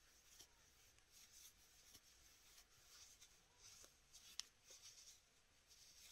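Faint rustle of yarn being worked with a metal crochet hook: soft rubbing swishes about twice a second, with one small sharp click about four seconds in.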